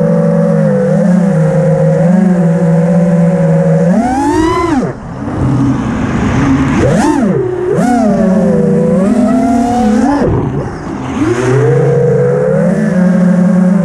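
FPV freestyle quadcopter's brushless motors and propellers whining as the throttle is worked. The pitch climbs sharply about four seconds in and falls away just after, surges again about seven seconds in, drops near ten seconds, then climbs once more.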